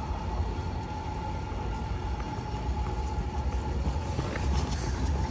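Tram running on its tracks: a steady low rumble with a steady whine held at one pitch.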